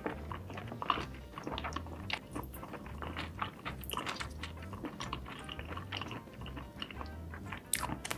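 Close-miked chewing with wet smacks and many sharp mouth clicks, over background music with a low, even pulse.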